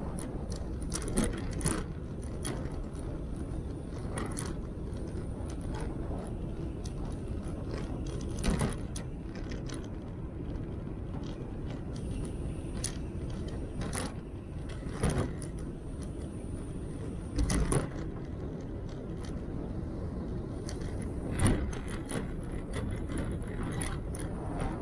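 Velomobile rolling over a rough, bumpy path surface: a steady rumble from the wheels and body, broken by sharp knocks and rattles as it hits bumps, about half a dozen louder ones.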